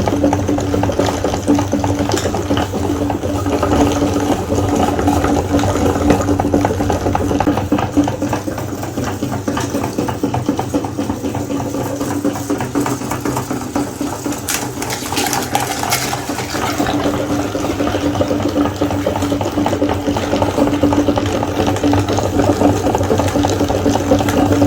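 Electric meat grinder running steadily with a constant motor hum, grinding wet material.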